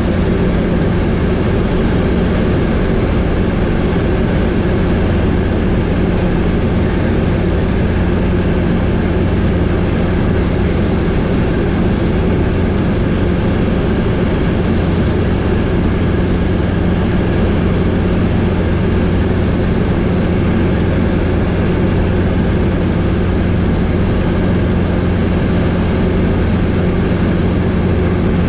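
Helicopter in flight: its rotor and engine make a loud, steady low drone that does not change.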